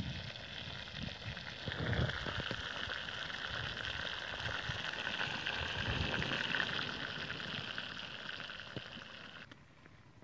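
Whole chicken frying in hot oil in a metal pan over a wood fire, with a dense steady sizzle and crackle. The sizzle cuts off suddenly near the end.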